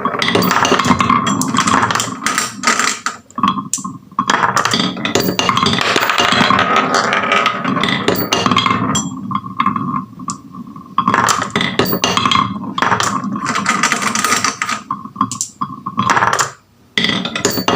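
Marbles rolling and clattering down a HABA wooden marble run: a steady rolling rumble full of rapid clicks and knocks as they hit the track and each other, with a few brief lulls.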